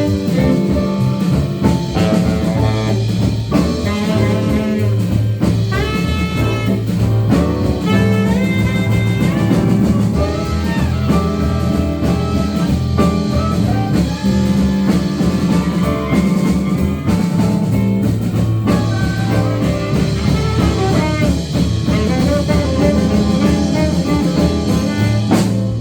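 Live jazz-blues band playing an instrumental passage, with horn lines over bass and drums.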